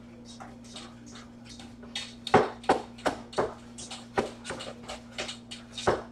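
Waffle batter being mixed by hand in a bowl: a utensil clicking against the bowl in quick, uneven strokes, about three a second, starting about two seconds in, over a steady low hum.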